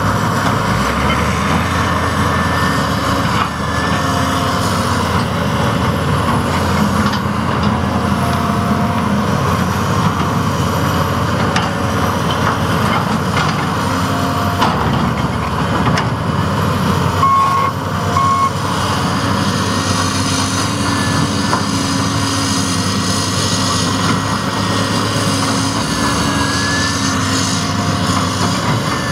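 John Deere 330C LC tracked excavator's diesel engine running steadily under load as it digs into a dirt mound. A reversing alarm beeps twice about two-thirds of the way through.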